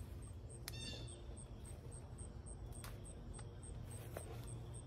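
An insect chirping steadily, high-pitched and evenly repeated about three to four times a second, over a low steady rumble, with a few faint clicks.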